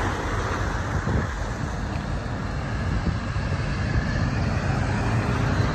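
Steady outdoor noise of road traffic, with wind rumbling on the phone's microphone.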